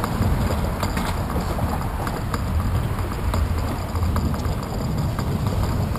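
Bicycle rolling over a concrete path, heard through a handlebar-mounted GoPro Hero 2: a steady low rumble of wind and road vibration on the microphone, with irregular light clicks and rattles from the bike and mount.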